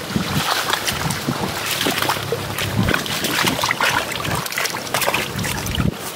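Water splashing and sloshing as a bamboo plunge basket is worked in shallow marsh water and a hand gropes inside it for a trapped snakehead, in many short irregular splashes. Wind buffets the microphone.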